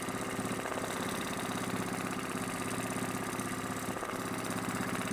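Domestic sewing machine running steadily at speed, its needle stitching a test line of free-motion quilting to check the top-thread tension.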